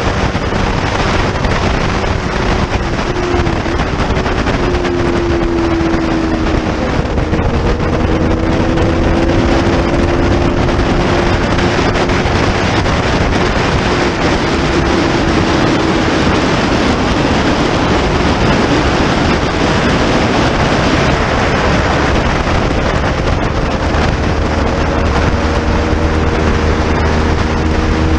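Motorcycle engine running hard at speed under heavy wind rush over the microphone, its note climbing and dropping back several times as the rider works through the gears.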